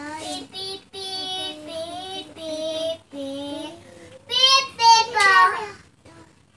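A young child singing a wordless melody in held, gliding notes, with a louder, higher-pitched phrase near the end.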